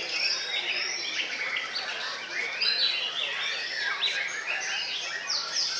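Many white-rumped shamas singing at once in a dense, unbroken chorus of overlapping whistles and chirps.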